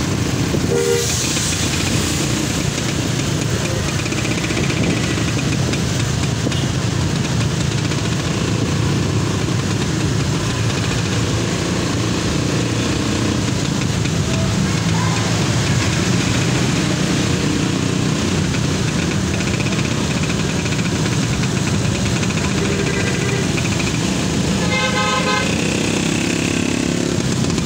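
Bus engine and road noise running steadily, with a multi-tone Basuri 'telolet' bus horn sounding about a second in and again near the end in quick repeated notes.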